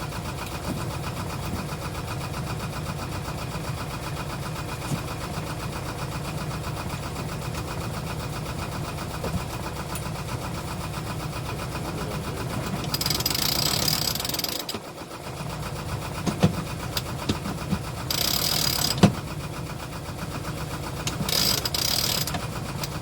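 A sailboat's engine running steadily with a low drone. Three short bursts of hiss come in the second half.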